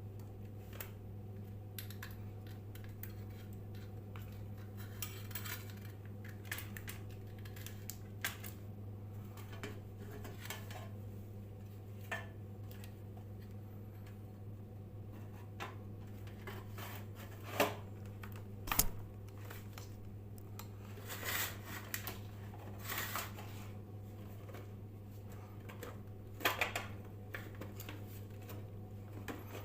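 A steady low electrical hum, with scattered light metallic clicks and clinks of small tools or parts being handled; the sharpest knocks come about two thirds of the way through and again near the end.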